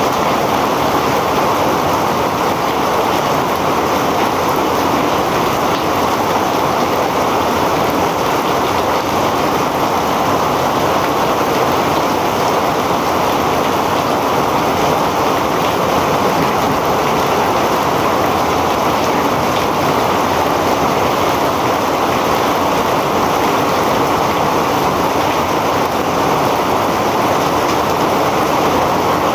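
Heavy rain falling steadily as a dense, even hiss with no let-up.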